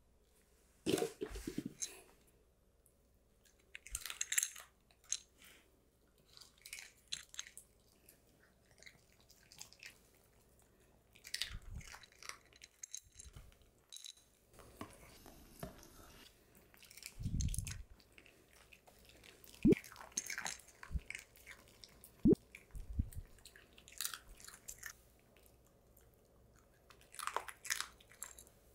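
Small dogs chewing and crunching treats in irregular bouts of short crackly bites, with a dull thump about two-thirds of the way through.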